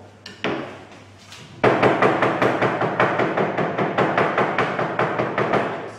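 Agate pestle striking and crushing clayey soil in an agate mortar, grinding it to powder: a few separate knocks, then a fast, even run of strikes, about six a second, beginning about a second and a half in and stopping just before the end.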